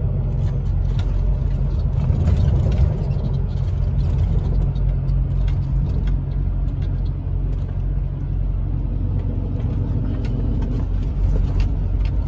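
Truck's diesel engine running steadily while driving, with tyre and road noise, heard from inside the cab. A few faint clicks sound over the drone.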